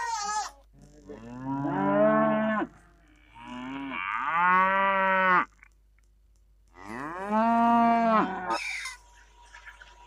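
Cows mooing: three long moos about a second apart. A goat's bleat trails off in the first half second.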